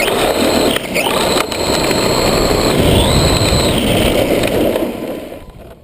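Electric motor and drivetrain of a battery-powered Redcat Shredder XT RC truck whining under throttle, the pitch climbing at the start, dipping and climbing again, then easing off, over a loud rushing noise of the tyres in sand. The sound drops away sharply near the end.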